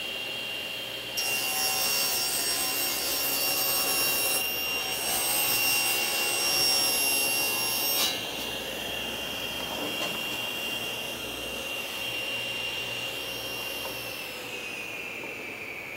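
Table saw running with a steady high whine, ripping a sheet of plywood from about a second in to about eight seconds, when the cutting noise stops. The blade then spins free, and its whine falls in pitch near the end as the saw winds down.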